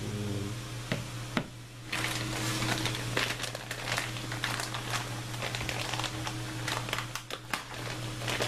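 Two light taps as a plastic timing chain guide is laid on a cardboard-covered workbench, then several seconds of crinkling, rustling handling noise, all over a steady low hum.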